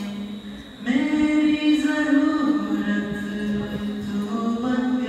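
A man singing with no instruments, in long held notes with slow slides between them; he pauses briefly for breath and starts a new phrase about a second in.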